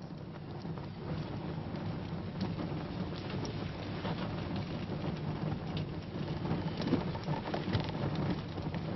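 Steady hiss of rain with scattered crackles.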